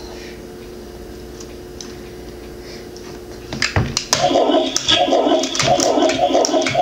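Hasbro Toilet Trouble toy toilet playing its electronic flushing sound effect, a loud gurgling flush that starts about four seconds in after a couple of clicks of the flush handle.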